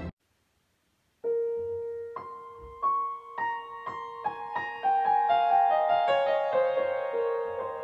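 About a second of silence, then background piano music begins: one held note, then single notes struck one after another at an even pace, building up into fuller chords.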